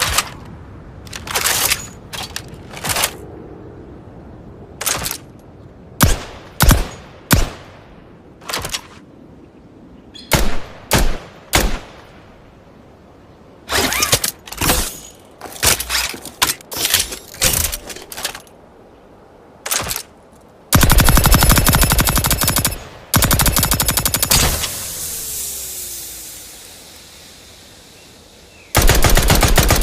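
Air-cooled machine gun firing: a series of short bursts a second or two apart, then a long sustained burst of about four seconds that dies away, and another long burst starting near the end.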